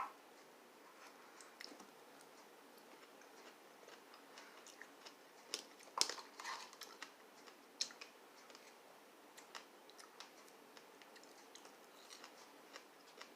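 Close-up mouth sounds of someone chewing strawberries: faint, scattered wet clicks and smacks, loudest about six seconds in and again near eight seconds.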